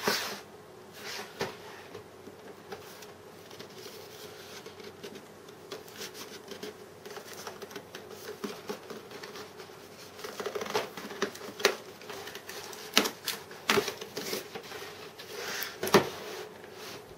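Keyboard box packaging being handled and pried open: scattered rustles, scrapes and small clicks, with several sharper, louder snaps in the second half, over a faint steady hum.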